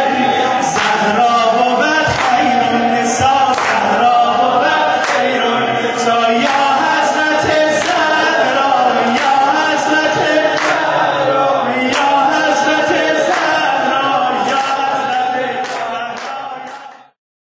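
Male voices chanting a devotional song in unison, with sharp beats about once a second, fading out near the end.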